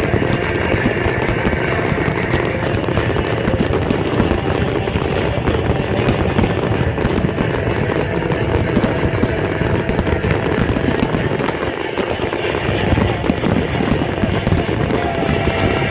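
Fireworks display: a dense, continuous run of crackling and popping bursts.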